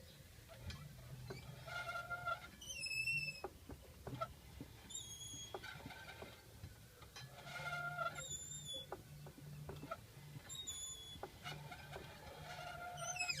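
The driveshaft of a VAZ 21063 squeaks as the rear axle is turned by hand: a series of high squeals every two to three seconds. Under them is a low scraping from the rear left wheel, with a few light clicks.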